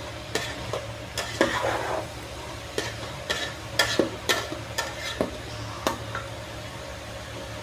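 Metal spatula stirring and scraping vegetables around a metal cooking pot, with a dozen or so irregular knocks against the pot's sides and bottom, over a low sizzle of sliced flat beans and potatoes sautéing in spiced oil.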